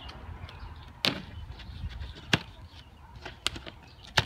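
Yellow plastic packing straps around a large cardboard box being cut and pulled. Four sharp snaps about a second apart, the last one the loudest.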